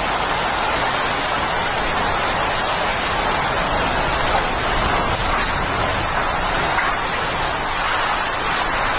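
Hurricane wind and heavy rain: a loud, steady rushing noise with no breaks.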